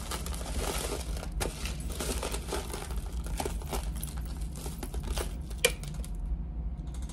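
Hands rummaging through a bin of junk jewelry: steady crinkling and rustling dotted with many small clicks of metal and beads. One louder click comes near the end, and the rustling stops soon after.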